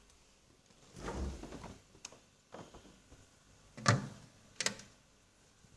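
Frozen squishy toy handled and then tapped: a soft rustle about a second in, then a few sharp hard knocks, the loudest about four seconds in. They sound hard because the foam has frozen stiff.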